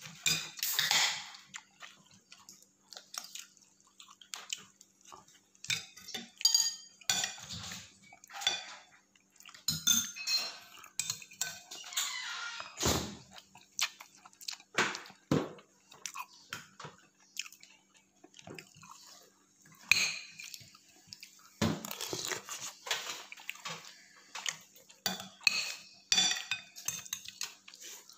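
Metal spoon scraping and clinking against a ceramic plate while scooping up rice and soup, in short irregular strokes.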